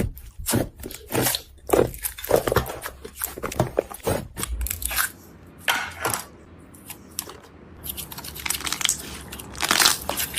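Slime being squeezed and pressed by hand, giving irregular crunching and crackling pops. The pops thin out in the middle and crowd together again near the end.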